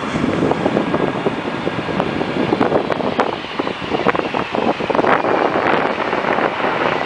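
Wind buffeting the microphone in irregular gusts over a steady rush, with the faint high whine of an approaching Boeing 767's jet engines.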